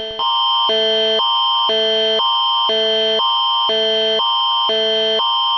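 Canadian Alert Ready emergency attention signal: two alternating chords of steady tones, switching about every half second over a constant high tone, with a brief break just after the start. The signal heralds a broadcast emergency alert.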